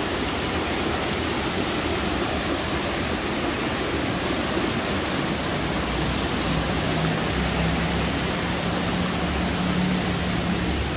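Rainforest creek in flood, rushing and cascading over mossy boulders in a steady roar of water.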